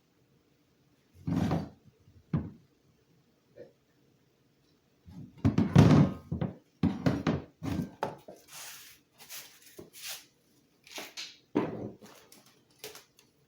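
Objects being handled and set down on a hard surface: a run of irregular thuds and knocks, loudest and most frequent about five to eight seconds in, with brief rustling between them.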